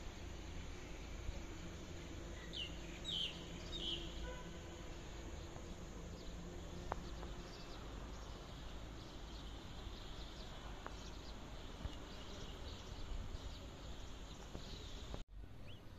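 Outdoor nature ambience: a few short bird chirps about three seconds in, over a faint steady insect hum and a low rumble. The sound drops out briefly just before the end.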